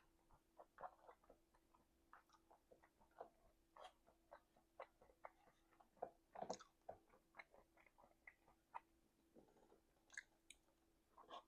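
Messy, open-mouthed chewing close to the microphone: an irregular run of small wet smacks and clicks, with a louder smack about six and a half seconds in and another near the end.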